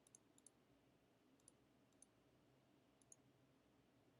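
Near silence with about five faint, sharp, scattered clicks of computer keys.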